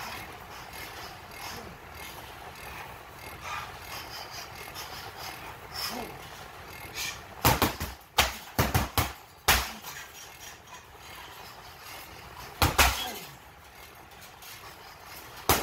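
Wooden staff striking a hanging heavy bag: a quick flurry of about five sharp hits a little past the middle, then two single hits later on, over a steady low background noise.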